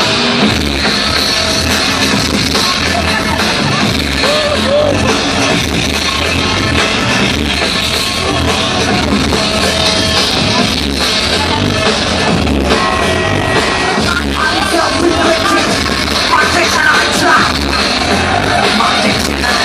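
Live rock band playing loud through a festival PA, heard from within the crowd: singing over guitars and a steady bass beat.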